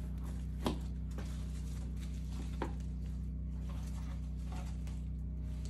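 Bubble wrap crinkling under hands as the wrapped package is pressed and felt. Two sharp crackles come, one about a second in and one near the middle, over a steady low hum.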